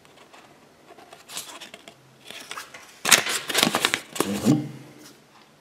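Rustling and crinkling of a folded paper Kinder Surprise leaflet being handled and turned over. It is faint at first and turns into a loud, crisp crackle from about three seconds in, dying away after about a second and a half.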